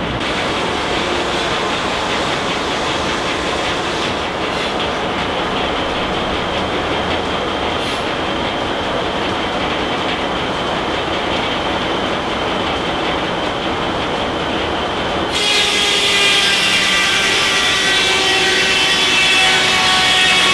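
Large circular head saw of a steam-powered sawmill spinning with steady mechanical running noise. About fifteen seconds in the blade bites into a log on the carriage and the sound turns louder and higher, with a ringing whine as it cuts.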